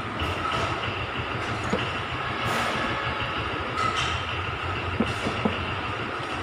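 A steady mechanical running noise with a faint whine, and a few light knocks.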